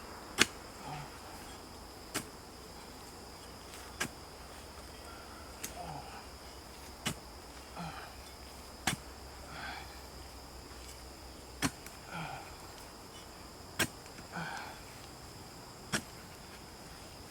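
Sharp knocks about every two seconds, with softer rustling sounds between them, over a steady high-pitched insect drone.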